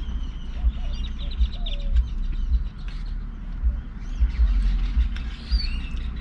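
Small birds chirping with short repeated calls, loudest about a second in and again near the end, over gusty wind rumbling on the microphone.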